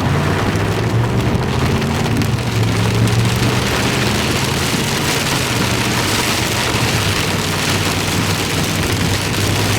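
Heavy rain pelting a vehicle, a steady hiss, over the low hum of the car's engine running as it drives.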